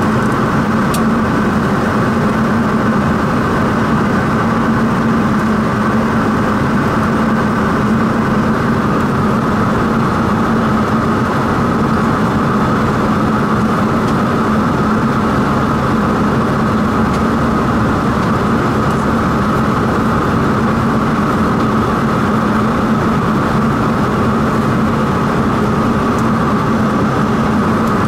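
General Electric CT7-9B turboprop engine of a Saab 340B Plus running steadily after start, with its propeller turning, heard from inside the cabin. It makes a loud, even drone: a low hum under a higher whine.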